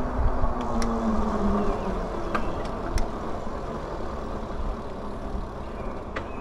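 Wallke H9 AWD e-bike being ridden on a wet trail: a steady rush of tyre and riding noise, with a low hum that fades out about two seconds in and a few sharp clicks.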